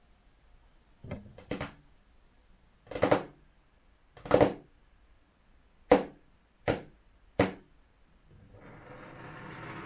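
Hands tapping and knocking on a hard tabletop. There are two light taps about a second in, two fuller knocks, then three sharp taps in quick succession.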